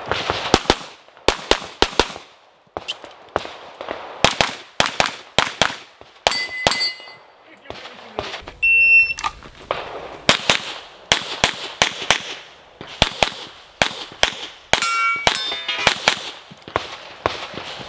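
Pistol shots fired in quick strings of two and three, with metal targets ringing when hit. A short steady electronic beep about nine seconds in, typical of a shot timer's start signal.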